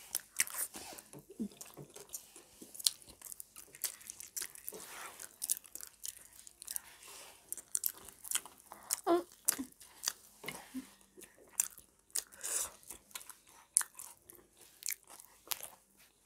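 Close-up chewing and biting into a homemade veg burger: irregular soft crunches and wet mouth smacks.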